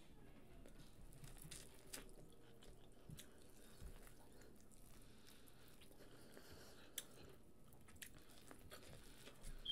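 Faint mouth sounds of a person eating, biting and chewing food, with a few soft clicks, over a quiet room.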